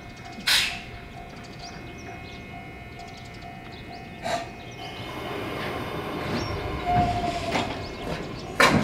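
JR 105 series electric train starting away from a station platform: short sharp hisses about half a second in and about four seconds in, then its running noise building up from about five seconds in, with a brief tone near seven seconds and another sharp hiss near the end.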